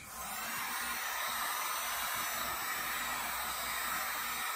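Handheld electric heat gun switched on and blowing steadily, a constant rush of fan and hot air after a click as it starts. It is warming the motorcycle's tank badge to soften the adhesive for removal.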